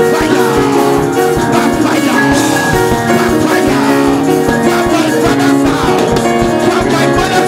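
Music with sustained pitched notes over a steady beat.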